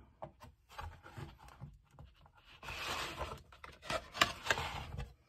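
Hands handling and turning a stiff board-book page: light taps at first, then a rustling scrape about two and a half seconds in, and a few small knocks near the end as the page settles.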